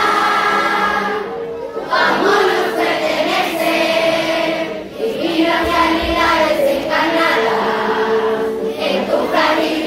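Large group of children singing a hymn together in unison, with brief breaks between phrases.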